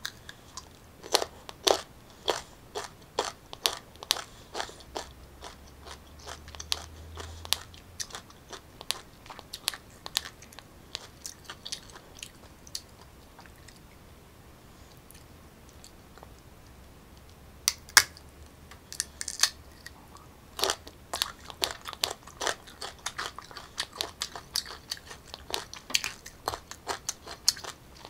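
Crisp bites into unripe green mango and close-up crunchy chewing of the firm raw fruit. It goes quiet for a few seconds midway, then a second sharp bite comes about 18 seconds in, followed by more crunching.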